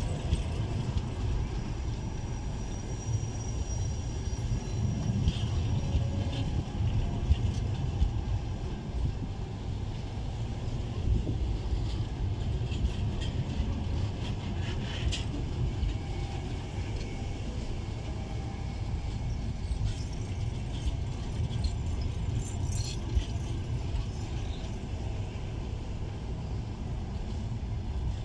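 Passenger railway coaches rolling past along a station platform: a steady low rumble of wheels on rail, with scattered metallic clicks and clinks from the running gear.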